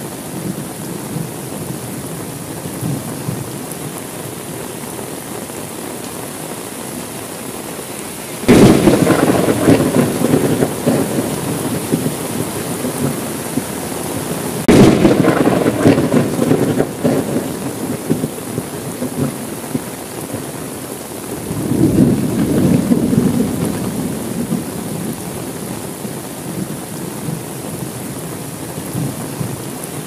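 Steady rain with three thunderclaps. A sharp clap comes about eight seconds in and another around fifteen seconds, each sudden and the loudest sounds, dying away over a few seconds. Then a slower rumble swells up around twenty-two seconds.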